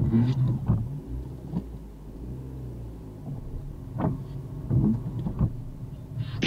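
Inside a car: the engine runs at low revs as the car rolls slowly along a wet street, with a few faint knocks.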